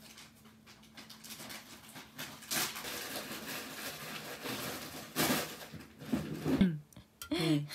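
Dining-room background noise with a few sharp knocks of tableware, and a brief voice near the end.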